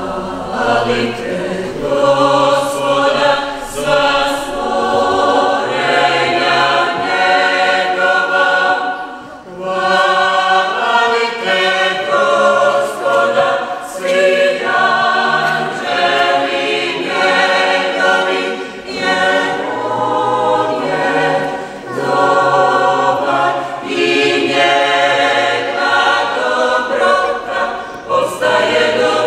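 Mixed choir of women's and men's voices singing in sustained chords, the phrases broken by brief pauses for breath.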